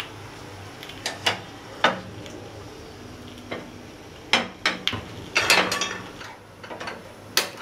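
Kitchen utensils and dishes knocking and clinking while batter is made: a string of separate sharp knocks and clinks, some ringing briefly, about a second apart and bunched a little past the middle.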